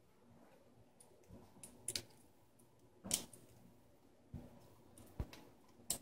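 A handful of separate light clicks and taps from a small screwdriver and loose screws being worked at a laptop motherboard while it is unscrewed.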